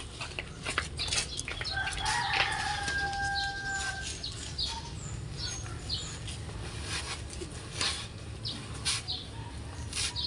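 A rooster crows once, a long steady call lasting about two seconds that begins about two seconds in. Scattered clicks and scraping from handling the sack go on underneath.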